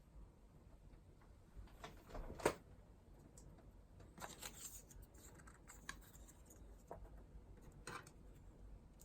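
Faint scattered clicks and taps with a brief rustle, from small objects being handled. The sharpest tap comes about two and a half seconds in, and the rustle about halfway through.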